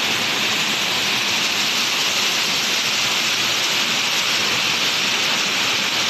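Waterfall rushing steadily down a rock face into a pool: a constant, unbroken roar of falling water.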